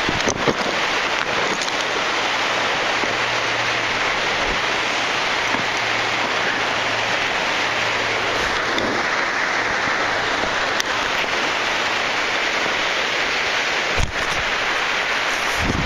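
Loud, steady rush of falling water pouring and spraying close by, with a couple of brief knocks, the sharpest near the end.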